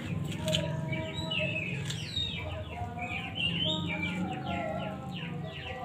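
Birds chirping over and over in quick, short, falling chirps, with a few light clinks of a spoon against a stone mortar as greens are stirred into sambal.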